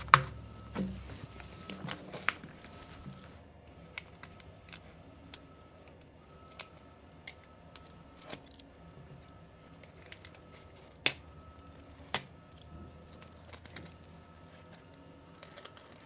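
Paper transfer sheet and vinyl lettering being peeled and pressed by hand onto a glass fridge door: scattered light clicks, taps and paper crinkles, with a sharp click at the start and two more near the end.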